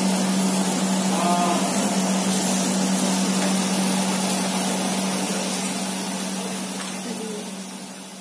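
Chopped onions and ginger-garlic-green chilli paste sizzling in oil in a nonstick kadai, stirred at first with a wooden spatula, over a steady low hum. The sound fades away near the end.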